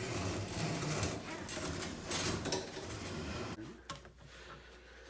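Clattering and rattling of hard objects, which stops about three and a half seconds in and leaves a low steady hum.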